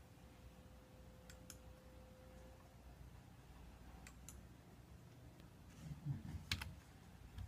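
Quiet clicking of a computer mouse, three pairs of quick clicks a few seconds apart, with a soft low bump of handling noise just before the last and loudest pair.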